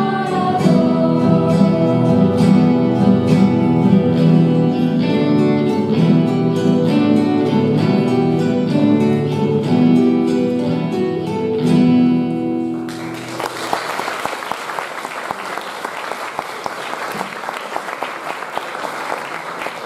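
A small ensemble of acoustic guitars with singing voices plays the end of a song, which stops about 13 seconds in. An audience then applauds steadily to the end.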